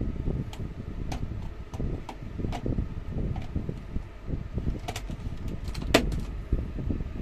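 Plastic clicks and handling rumble as a Xiaomi Mi smart home gateway is pushed into a power-strip socket. Several small clicks are followed by the loudest, sharpest click about six seconds in, as the plug seats.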